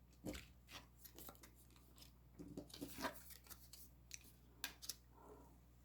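Faint soft clicks and rustles of fortune-telling cards being handled and laid down on a table, a few small taps scattered through an otherwise quiet stretch.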